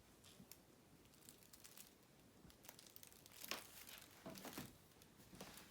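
Near silence with faint scattered rustling and clicks, a few louder ones about three and a half to four and a half seconds in.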